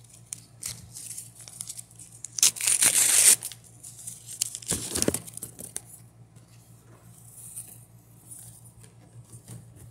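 A McDonald's paper Pokémon card pack being torn open by hand: a long rip about two and a half seconds in and a shorter one about five seconds in, with crinkling of the wrapper around them.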